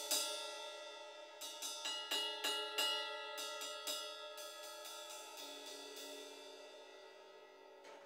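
An 18-inch Sabian AAX Splosion crash cymbal struck with wooden drumsticks. It is hit at the start, then given a quick run of several hits between about one and a half and four seconds in. After that it rings on, dying away slowly, with a light stroke at the very end.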